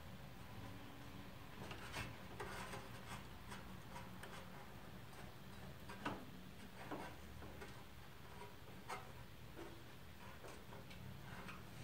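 Scattered faint clicks and taps of a screwdriver and hands working screws into a sheet-steel computer case chassis, over a low steady hum.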